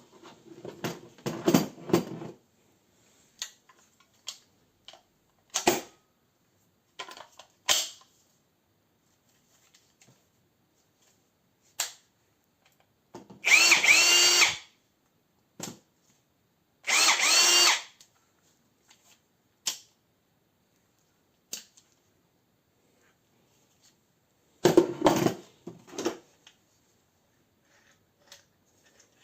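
AEG 18 V brushless compact hammer drill-driver run in separate bursts. There is one burst near the start and a few short blips, then two longer, louder runs around the middle in which the motor's whine rises and falls, and another burst near the end.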